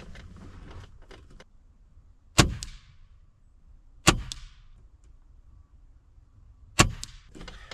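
A .22 Gamo Swarm Fusion break-barrel air rifle fired three times, about two seconds apart, each sharp shot followed a split second later by a fainter second crack. A few light clicks from handling the rifle come before the first shot.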